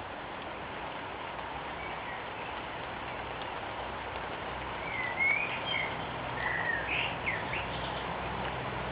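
A small bird gives a few short chirps and whistles from about five seconds in, over a steady background hiss.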